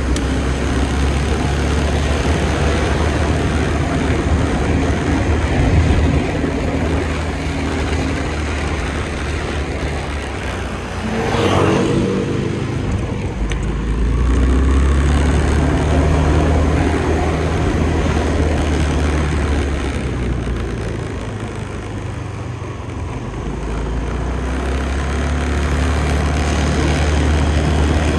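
Scooter engine and road noise in city traffic, with a steady low hum. About eleven seconds in, a vehicle passes close, its whine dropping in pitch as it goes by.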